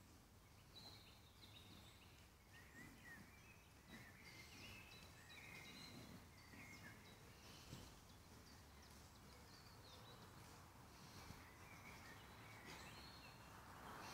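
Faint woodland birdsong: short chirping phrases from several small birds repeating throughout, over a quiet steady hiss.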